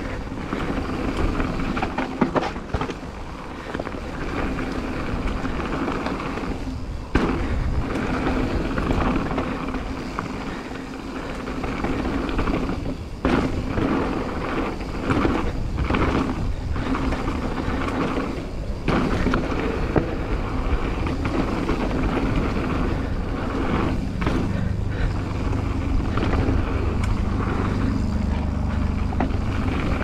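Mountain bike on Maxxis Minion tyres ridden fast down a dirt and stone trail: a continuous rough rumble of tyres on the ground, with frequent sharp knocks and rattles from the bike over bumps and roots. The noise briefly drops out a few times along the way.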